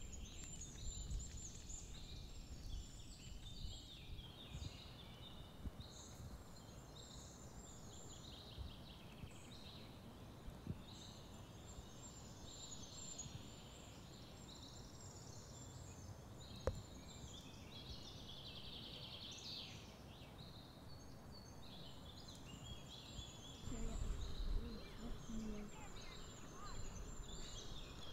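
Small birds chirping and singing over a faint, steady outdoor background hiss. Near the end come a few low bumps.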